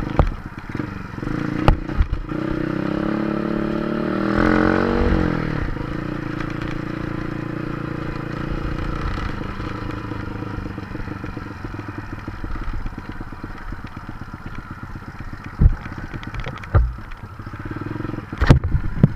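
Honda Dream 100cc motorcycle's single-cylinder four-stroke engine running under way on a rough dirt trail, revving up a few seconds in and then easing back. Sharp knocks and rattles from the bike jolting over bumps, several of them near the end.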